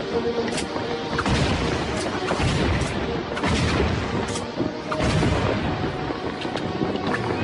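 Cartoon sound effects: a dense, low rumbling noise with a scattered run of sharp knocks and clicks, over background music.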